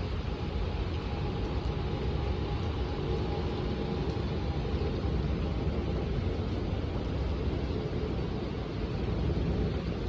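Steady rain falling on paving, puddles and garden plants: a constant hiss over a low rumble. A faint hum sits in the background for a few seconds in the first half.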